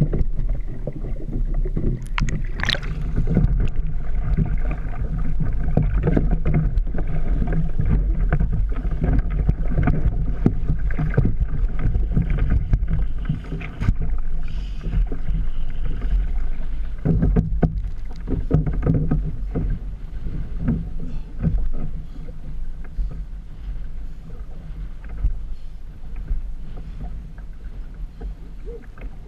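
Wind rumbling on the microphone of a kayak-mounted camera, with choppy waves splashing and knocking against the kayak, loud at first and easing off toward the end.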